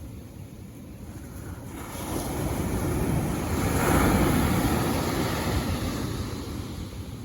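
Sea wave surging in and washing up the shore, swelling to its loudest about four seconds in and then drawing back.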